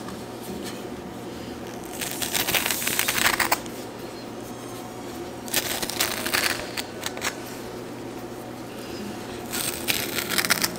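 Three spells of rasping, rustling handling noise from hands-on kitchen work, each a second or so long, over a steady low hum.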